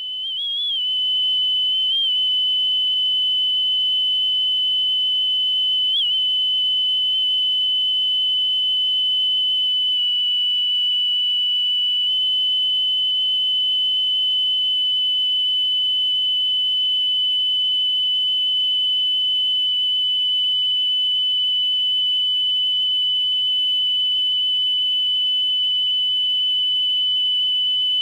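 A steady test tone of about 3 kHz played back from a cassette on a 1972 Philips N2405 cassette player, the kind of tone used for a wow-and-flutter measurement. It fades in, wavers slightly in pitch during the first second, then holds steady, with a faint low hum beneath.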